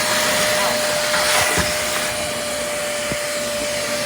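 A small electric motor running steadily: a constant whine over a steady hiss.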